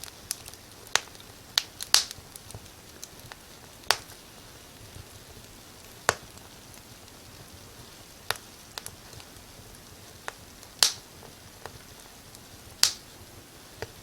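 Firewood burning in a fireplace: scattered sharp crackles and pops at irregular intervals, a few much louder than the rest, over a faint steady hiss.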